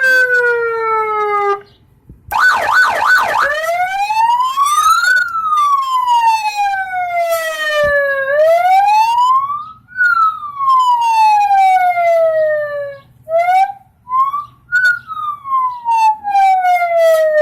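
Aftermarket electronic car siren playing through truck-mounted speakers, cycling through tones: a falling sweep, a brief gap, a fast warble, then a loud wail rising and falling in long repeated sweeps, and short quick chirps in the last few seconds.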